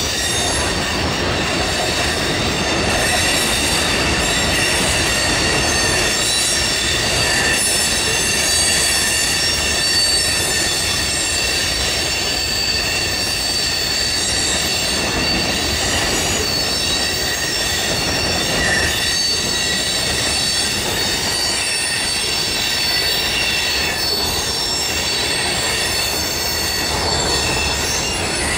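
Freight train cars rolling past on steel wheels, with several steady high-pitched tones of wheel squeal over a constant rumble.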